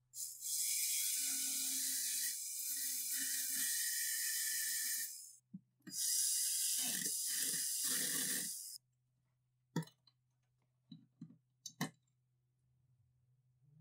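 Two long bursts of loud, steady hissing spray, each lasting a few seconds, followed by a few sharp clicks and knocks.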